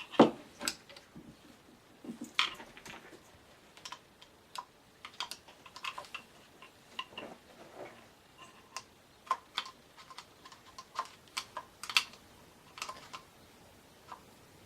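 Irregular light clicks and taps of small metal and plastic parts being handled and fitted on an AK rifle's receiver while a pistol grip is installed, with a sharper knock just after the start and another near the end.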